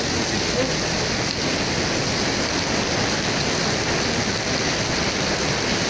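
Mountain waterfall pouring down a rock face and splashing, a steady rushing of falling water.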